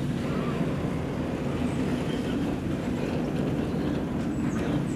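Steam locomotive moving slowly along the depot track: a steady low rumble with a few faint clanks.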